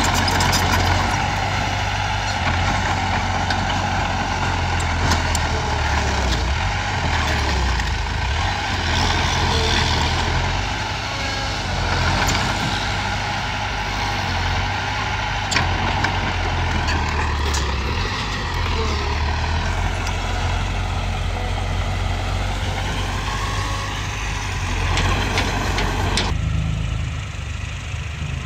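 Komatsu D20A small crawler bulldozer's diesel engine running steadily under load as it pushes a pile of broken rock, with clanking from the steel tracks and rocks knocking sharply now and then. A whine rises and falls in the middle. Near the end the sound switches abruptly to a quieter, lower engine hum.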